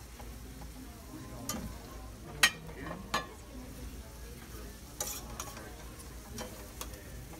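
Meat sizzling in a sauce in a sauté pan over a portable gas burner while it is stirred and turned with metal utensils. The utensils clink against the pan several times, loudest about two and a half seconds in.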